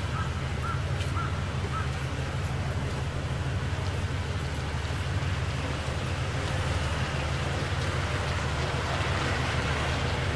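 Large tour coach's diesel engine running low and steady as it pulls away and turns past, growing a little louder in the second half. A few short faint chirps about half a second apart in the first two seconds.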